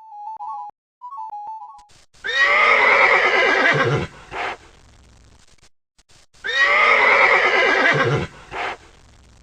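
A horse neighing twice, each a falling whinny of about two seconds followed by a brief shorter sound. A short jingle of electronic notes plays first.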